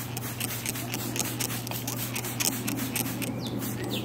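Water spraying onto a blue-and-gold macaw's wet feathers during a bath, heard as a dense, irregular run of small ticks of drops.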